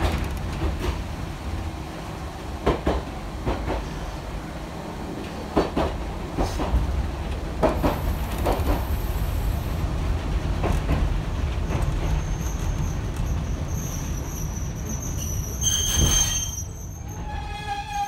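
Hankai Tramway streetcar running along the track, heard from inside the driver's cab: a steady low rumble with irregular clacks of the wheels over rail joints. High-pitched wheel squeals come in about eight seconds in and again over the last few seconds, loudest about sixteen seconds in.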